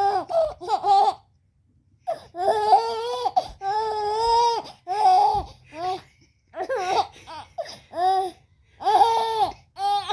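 Children laughing in high-pitched bursts with short breaths and pauses between them.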